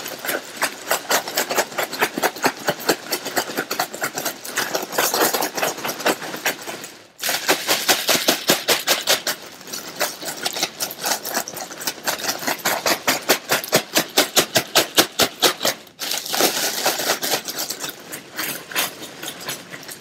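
Birdseed rattling and a plastic bag crinkling as the sealed bag with pinecones inside is shaken hard, several shakes a second, with two short pauses, about seven seconds in and again about sixteen seconds in.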